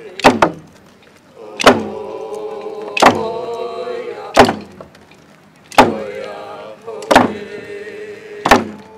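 Coast Salish hand drum beaten in a slow, steady beat, about one stroke every second and a half, with a group of voices singing a procession song between the strokes.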